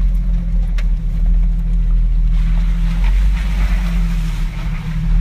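Jeep's engine running steadily at low speed on a dirt trail, a low drone with road and wind noise, heard from inside the cab.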